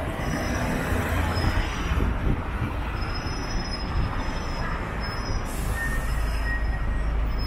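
A vehicle running with steady low noise and faint, thin high-pitched squealing tones over it.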